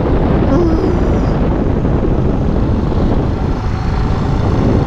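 Yamaha WR250X single-cylinder four-stroke motorcycle engine running steadily under way, mixed with wind noise on the rider's camera microphone.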